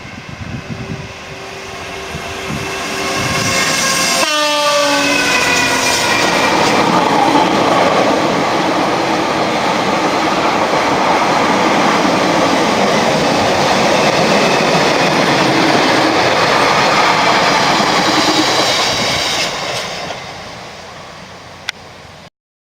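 Train passing close by on the track beside the canal, sounding its horn; about four seconds in the horn's pitch drops steeply as the train goes past. The noise of the train running on the rails then stays loud for about fifteen seconds and fades away near the end.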